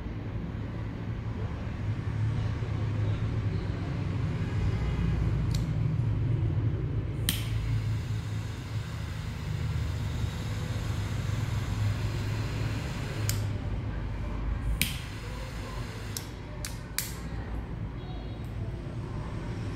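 Baofa triple-jet butane torch lighter: sharp clicks of its flip lid and igniter, about seven in all, with the jet flames hissing between two of the clicks. A steady low hum runs underneath.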